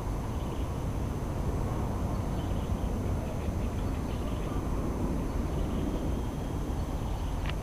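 Steady low outdoor rumble with no clear pitch, and a single light click near the end.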